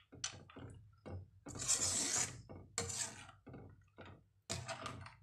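Metal ladle stirring thick tamarind gravy in an aluminium pan, scraping the pan in a series of uneven strokes, the longest about a second and a half in.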